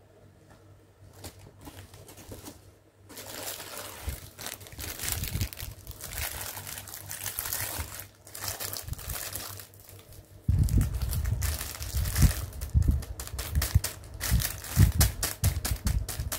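Clear plastic packaging crinkling and rustling as hands handle plastic-wrapped fabric pouches. It starts after a quiet first few seconds, and heavier low bumps of handling join in from about two-thirds of the way through.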